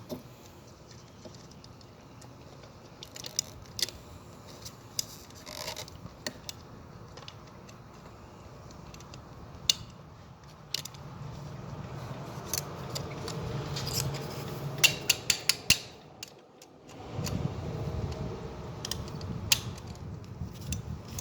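Scattered small metallic clicks and rattles of hand work on a fire alarm pull station's terminals, wire and resistor leads, growing louder and busier in the second half with a quick run of clicks.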